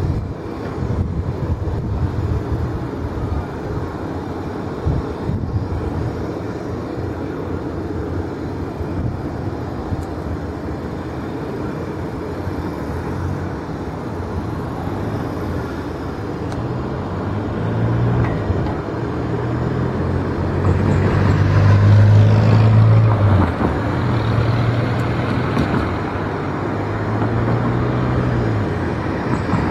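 Jet engines of a taxiing Boeing 737 at low thrust: a steady rumble and hiss. It grows louder over the second half, as the aircraft turns its tail and exhaust toward the listener.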